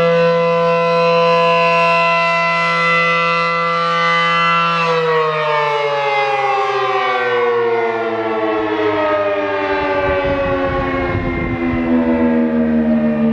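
A.C.A. P-10 outdoor warning siren sounding on its fire signal. It holds a steady full-pitch wail for about five seconds, then winds down in a long, slowly falling wail for the rest of the time.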